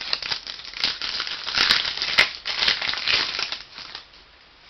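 Plastic trading-card packaging crinkling and crackling as it is handled, a dense run of crackles with a few sharp snaps that stops about four seconds in.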